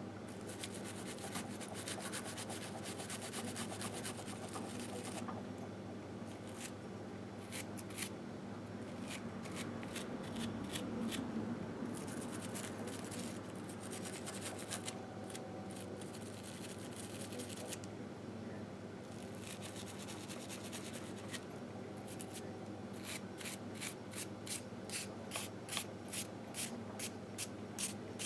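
Scrubbing grime off a 1958 Harley-Davidson Sportster's aluminium engine crankcase by hand: runs of rapid rubbing strokes with short pauses, settling into an even rhythm of about two to three strokes a second near the end.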